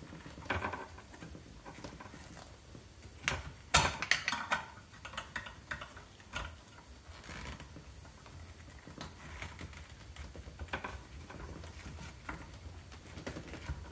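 Scattered plastic clicks and knocks as hands work the plastic reverse osmosis membrane housing and its cap, with a sharp cluster of knocks about three to four seconds in.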